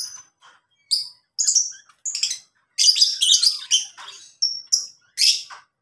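Lovebirds chirping: a rapid run of shrill, sharp chirps and squeaks, coming in quick bursts that crowd together in the middle.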